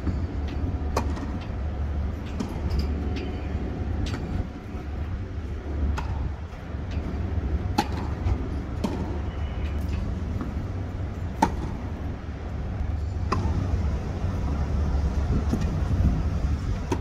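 Tennis rally: rackets striking the ball and the ball bouncing, sharp knocks every second or two, the loudest about two-thirds of the way through. Under them, a steady low rumble of wind on the microphone.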